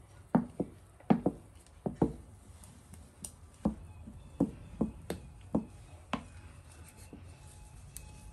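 A spoon stirring thick blended bean batter in a glass bowl, knocking against the bowl in a series of irregular taps that thin out after about six seconds.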